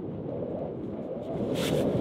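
Wind buffeting the microphone: a steady low rush, with a short scratchy rustle about a second and a half in.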